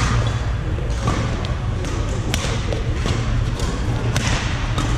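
Badminton rackets striking a shuttlecock during rallies, a quick series of sharp cracks, with echo from the hall, over a steady low hum.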